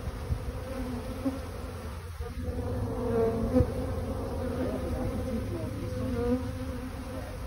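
Honey bees buzzing around their clustered colony: a steady hum of many wings, with single bees now and then flying close past, their buzz bending up and down in pitch.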